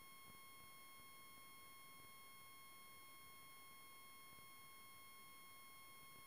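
Near silence with a faint, steady high-pitched electronic whine that holds one unchanging pitch.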